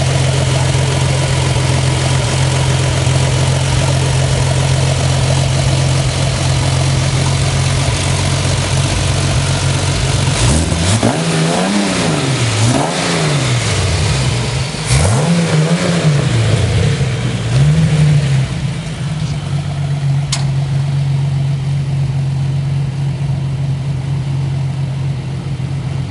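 Off-road buggy engine running at a steady idle, with the throttle blipped several times in quick succession around the middle so the pitch rises and falls, then settling back to idle. A few sharp clicks are heard along the way.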